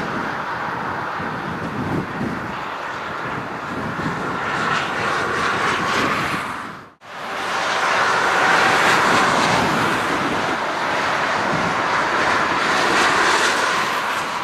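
Airbus A319 airliner's jet engines running after landing, a steady jet whine and rush as it rolls out and taxis. The sound drops out abruptly for a moment about seven seconds in, then carries on as before.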